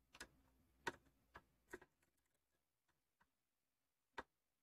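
A few faint, sharp, irregular clicks of a Phillips screwdriver seating in and turning a screw on a Singer Simple 3221 sewing machine, loosening it.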